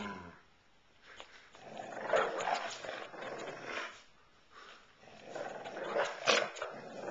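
Dog growling in play while tugging a rope tug toy: two stretches of growling, each a couple of seconds long.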